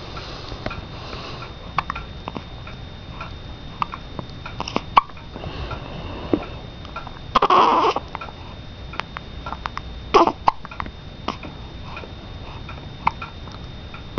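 Newborn baby hiccuping repeatedly: small, sharp hiccups at irregular intervals, roughly one a second. One longer, louder sound comes about halfway through.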